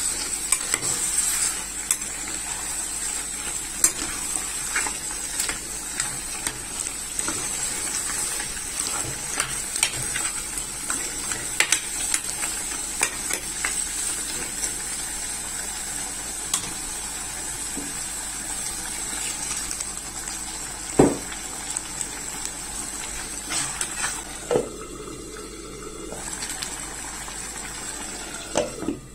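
Egusi soup sizzling in a pot on the stove while a spoon stirs it, with many short scrapes and taps of the spoon against the pot. A sharper knock comes about two-thirds of the way in. Near the end the lid is set on and the sizzle drops.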